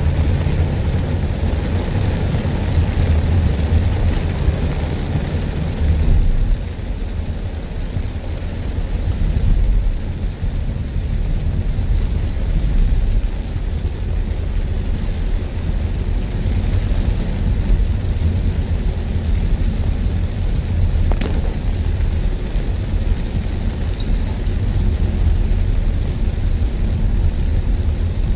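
Steady low rumble of road traffic, with an even hiss above it.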